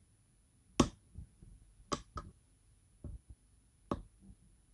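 Lock pick working the pins inside a Goal D9 lock cylinder: about five sharp, irregularly spaced clicks, the loudest about a second in.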